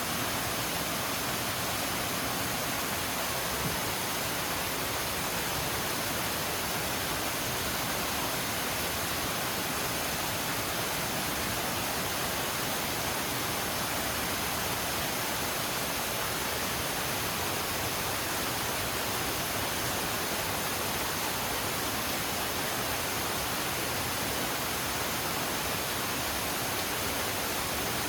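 Munson Creek Falls, a waterfall, rushing steadily: an even, unbroken hiss of falling water that does not change.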